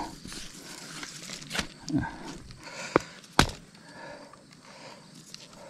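A few sharp clicks and knocks from fishing tackle being handled close to the microphone, the loudest two about three seconds in, over a faint outdoor background.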